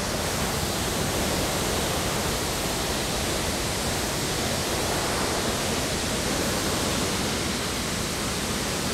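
Steady rushing of churning white water in a large container ship's propeller wash, seen from the stern.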